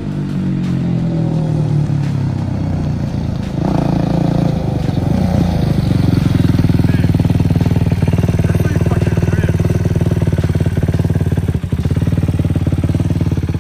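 2008 Yamaha YFZ450 quad's single-cylinder four-stroke engine, fitted with an aftermarket VMC full exhaust, running as the quad rides up and slows, its note shifting, then idling steadily close by for the second half.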